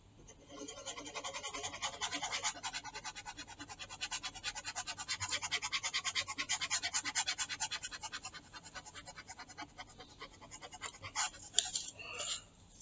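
Rapid back-and-forth scrubbing strokes, about ten a second, of a hand-held pointing device rubbing across its surface as handwriting is erased on screen. The strokes start about half a second in and stop about 11 s in, followed by a couple of sharp clicks.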